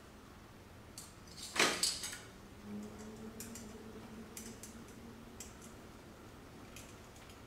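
Hands handling metal parts on a Honda Gold Wing GL1500 motorcycle's engine: a few light clicks, then a sharper metallic clank about a second and a half in that leaves a low ringing tone fading over the next few seconds, followed by scattered light ticks and taps.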